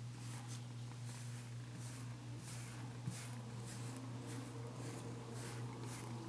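Brush strokes through a Bengal cat's fur: soft swishes repeating about three times a second, over a steady low hum, with one small knock about halfway.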